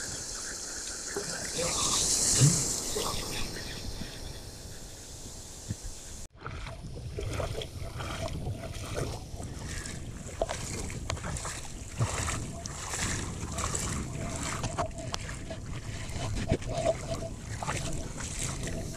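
Small sea waves washing in over a shallow reef edge, one wave louder about two seconds in. After a cut about six seconds in, feet wading through shallow water over the reef, with irregular splashes and sloshes.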